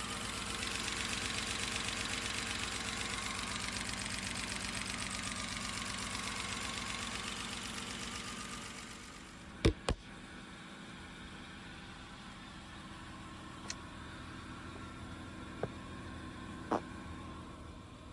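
BMW N52 straight-six engine idling steadily. About halfway through it drops to a lower level, followed by two sharp clicks in quick succession and a few fainter clicks later.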